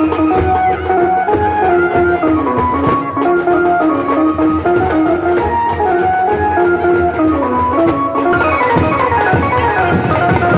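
Instrumental music: a melody moving in steps over drums and percussion.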